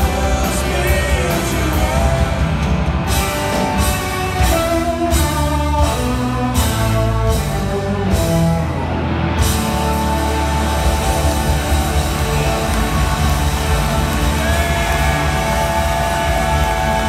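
Live blues-rock band of electric guitars, bass, drums and organ playing a slow song. About three seconds in, the band strikes a run of accented hits together; from about halfway, it holds a long sustained chord.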